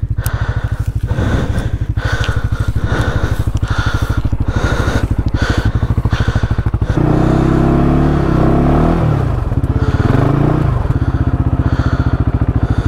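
ATV engine idling with a fast steady pulse. About seven seconds in it is revved up and down for roughly four seconds, then settles back to idle.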